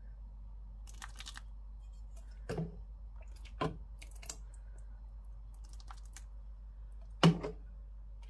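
Soup being ladled from a pan into a bowl: scattered clicks and knocks of the ladle against the pan and bowl, the loudest about seven seconds in, over a faint steady hum.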